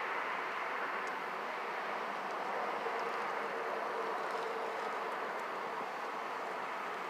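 A steady rushing noise with no clear rhythm, with a faint held hum near the middle and a few faint ticks.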